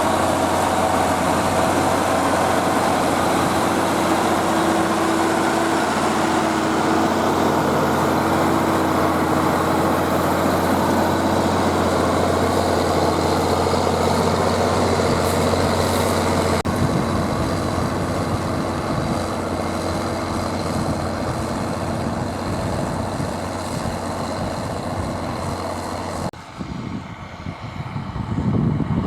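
Zetor Crystal 12145 tractor's diesel engine running steadily under load while pulling a five-furrow plough through wet soil. The sound changes abruptly about two-thirds of the way in, then drops sharply near the end before a deeper rumble builds up.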